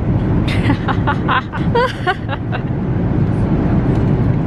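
Steady airliner cabin drone in flight, a deep, even rush of engine and air noise. A voice talks faintly for a couple of seconds near the start.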